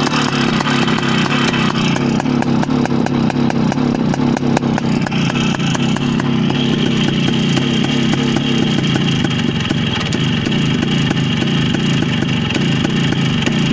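WSK 175 motorcycle's single-cylinder two-stroke engine idling steadily, with a rapid even firing beat.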